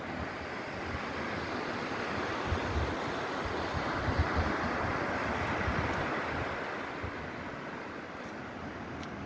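Sea surf washing onto a beach, the hiss of the wash swelling about two seconds in and easing off after about six seconds, with wind buffeting the microphone.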